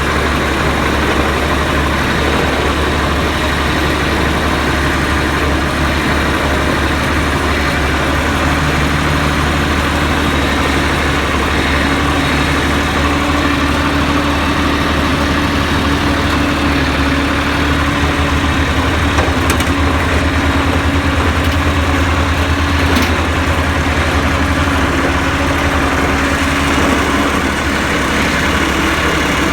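Massey Ferguson 1135 tractor's diesel engine running steadily.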